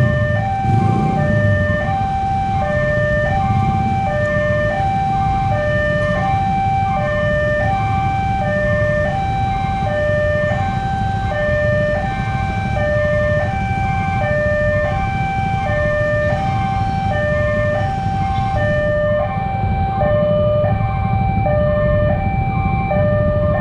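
Two-tone electronic siren alternating steadily between a higher and a lower tone, each held about half a second, over a steady low rumble.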